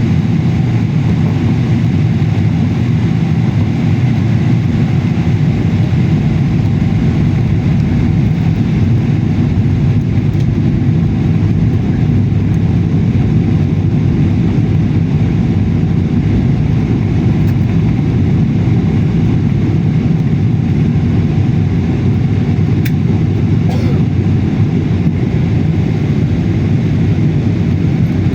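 Steady rumble of an airliner's engines and rushing air, heard from inside the passenger cabin.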